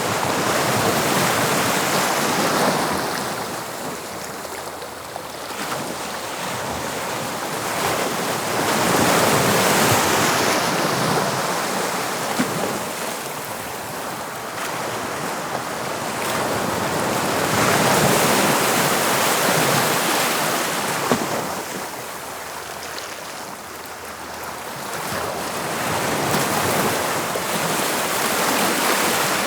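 Sea waves breaking and washing on the shore of the English Channel, the surf swelling and easing in slow surges about every eight to nine seconds.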